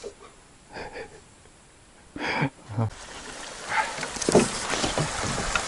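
A few short, faint sounds in a quiet room. About three seconds in, an abrupt change to the steady rush of a flowing stream, with a few light knocks over it.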